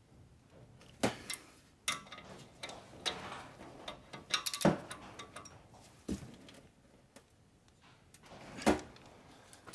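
Wrench on a brake caliper bracket bolt giving about half a dozen sharp metallic clicks at irregular intervals, with a quick cluster of clicks about halfway through, as the bolt is tightened toward its torque spec.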